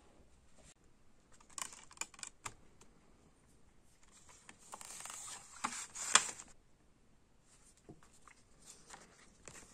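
A plastic CD jewel case and its paper booklet being handled. A few light plastic clicks come first, then a couple of seconds of rustling and scraping that ends in a sharp click, the loudest sound, about six seconds in, followed by soft paper handling.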